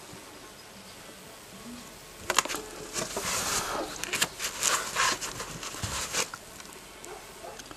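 A fine carving knife scratching and scraping across the face of a seal in a rapid run of short, sharp strokes, starting a couple of seconds in and stopping after about four seconds.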